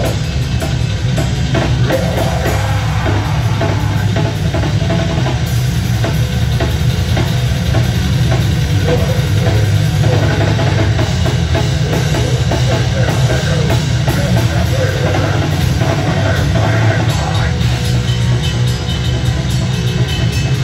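A live heavy rock band playing at full volume: electric guitars, bass and a drum kit, with a dense, heavy low end.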